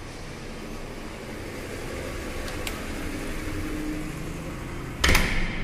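Road traffic: a steady rumble of passing autorickshaws, buses and cars, with a sharp click a little over halfway through and a short, loud burst of noise near the end.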